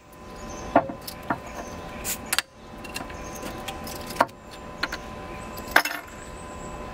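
Kitchen clatter: about seven irregular sharp clinks and knocks as utensils and containers are picked up and set down on a counter, over a faint steady hum.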